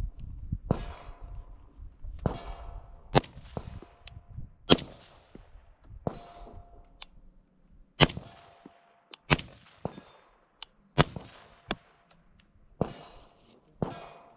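AR-style rifle fired in slow, single aimed shots, about ten of them spaced unevenly a second or so apart. Several shots are followed by a short ringing tone.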